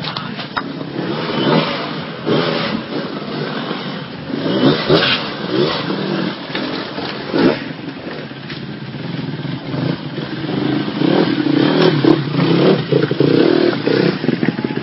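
Off-road enduro dirt bike engines revving in repeated short bursts as they claw up rocks, then holding a steadier drone in the last few seconds.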